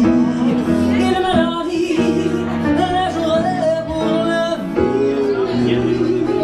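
A woman singing live into a hand-held microphone over sustained instrumental chords. Her long held notes waver with vibrato.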